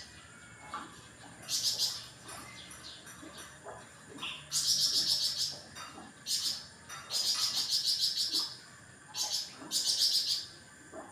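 A songbird known in Indonesian as 'flamboyan' singing a series of high-pitched, rapidly trilled phrases, each about half a second to a second and a half long, with short pauses between them.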